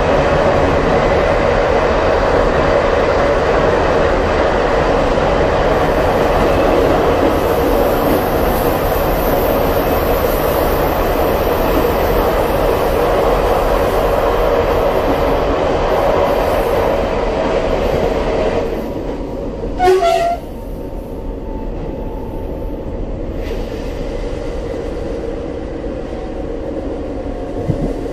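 Regio 2n (Z 57000) electric multiple unit running at line speed, heard from the driver's cab: a loud, steady rumble of wheels and running gear. It drops noticeably about two-thirds of the way through, and a short, sharp blip with a tone in it follows a second or so later.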